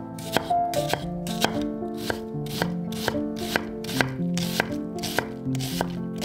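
Chef's knife chopping an onion on a wooden cutting board: sharp knocks of the blade on the board, about two a second, over background music.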